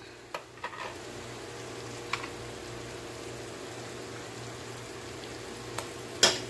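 Chicken masala simmering in a wok with a soft, steady bubbling and a low hum, broken by a few light clicks. Near the end comes one sharp knock as a spoonful of yogurt is tipped into the pan.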